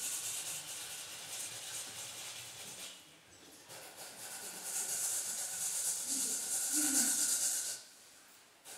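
Raw potatoes being grated by hand on a grater: a steady rasping scrape that pauses briefly about three seconds in and again near the end.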